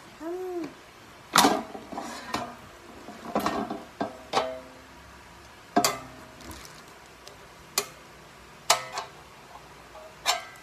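Xiaomi Mijia air fryer's basket drawer and crisper plate being handled: a series of sharp clacks and knocks, several with a short ringing. Near the end the basket drawer is pushed back into the fryer.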